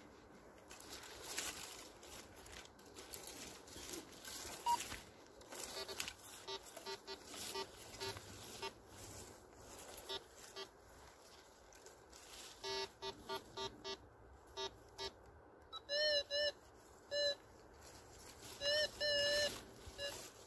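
Metal detector giving target tones as its search coil sweeps over leaf litter. First comes a string of short, faint low beeps, then in the last few seconds louder, higher beeps in short groups, the sign of a small metal target under the coil. Rustling of leaves and grass underfoot before the beeps.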